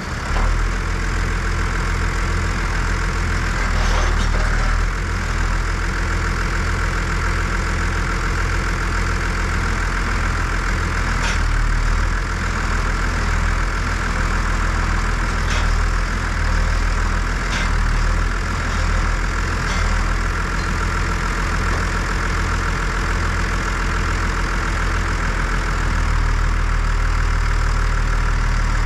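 John Deere 3650 tractor's diesel engine idling steadily, with a few light ticks along the way.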